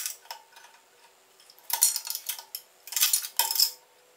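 A wrench working the table-squaring adjustment bolt under a bandsaw table, making short bursts of rapid metallic clicking, about three of them, with quiet pauses between.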